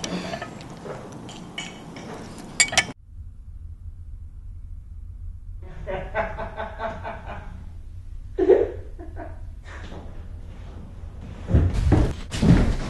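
Light clinks and clatter of dishes at a table, then men laughing, then loud thuds and crashes near the end.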